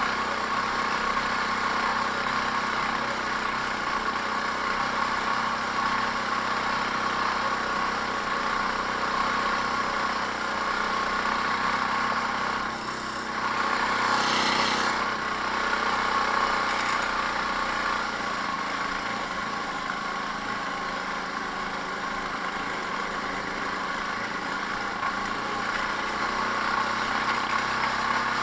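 Fox go-kart's small engine running steadily while under way on a rough dirt trail, with a brief louder rush of noise about halfway through.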